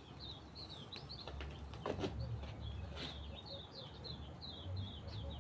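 A bird chirping over and over in short high notes, about three a second, with a low rumble underneath.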